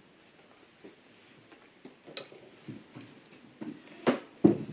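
Tableware being handled: cutlery and cups knocking against ceramic plates in scattered light clinks. There is a short ringing clink about two seconds in and two louder knocks near the end.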